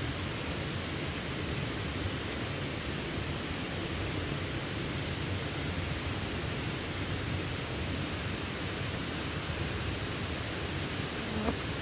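Steady rush of water, an even unbroken noise. Near the end there is one short squeak that glides upward in pitch.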